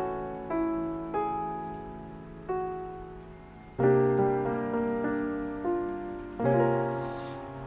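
Background piano music: slow notes and chords struck every second or so, each ringing and fading away, with a fuller, louder chord about four seconds in.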